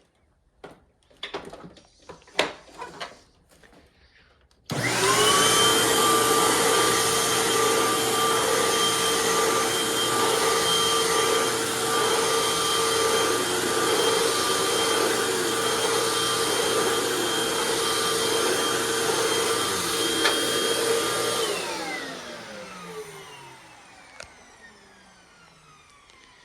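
A few sharp knocks, then a 2016 Hoover WindTunnel upright vacuum cleaner is switched on and runs steadily with a loud whine for about seventeen seconds. It is then switched off, and the motor winds down with a falling pitch.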